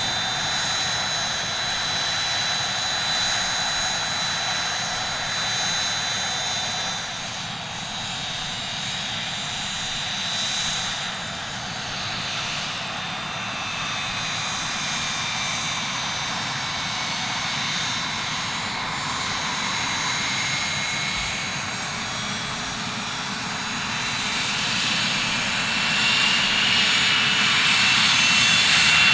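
Cessna 525 CitationJet's twin Williams FJ44 turbofan engines running at taxi power, a steady high whine over a rushing hiss. In the second half a lower tone sinks and then climbs again in pitch, and the engines grow louder near the end as the jet taxis closer.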